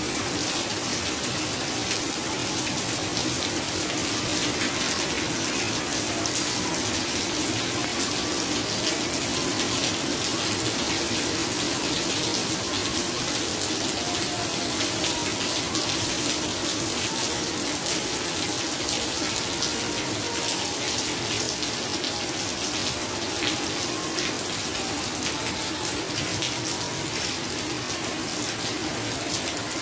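Heavy rain falling steadily, pattering and splashing into puddles on a tiled floor, with many close drop impacts.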